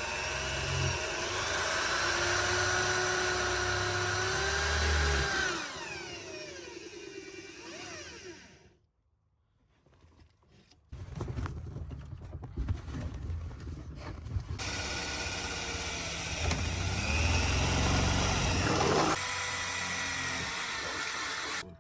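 Power drill running under load as it bores through the car's floor panel for the shifter mounts, its whine winding down about six seconds in. After a brief pause and a few short bursts, it runs again steadily for several seconds.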